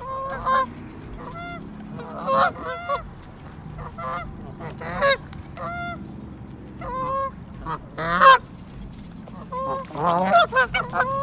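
Canada geese honking: repeated short calls, several in quick runs.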